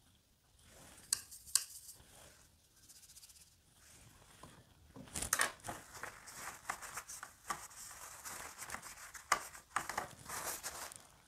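Watercolour brush swishing and scrubbing paint around in a palette, with soft scratchy strokes that get busier and louder about halfway through, and a few sharp clicks.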